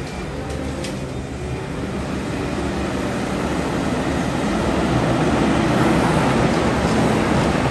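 Heavy machinery's diesel engine running, a steady rumble that grows louder over the first few seconds and then holds level.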